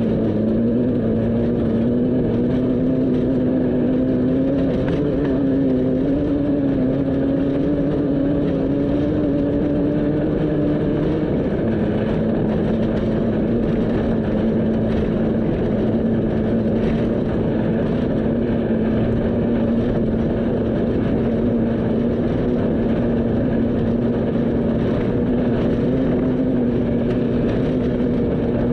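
A vehicle engine running steadily under way, with road noise underneath. The engine note climbs slowly, drops suddenly about eleven seconds in, then holds steady.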